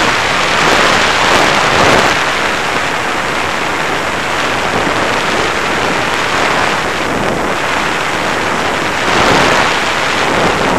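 Wind rushing over the onboard camera microphone of an FPV model plane in flight, a steady noisy rush that swells near the start and again about nine seconds in.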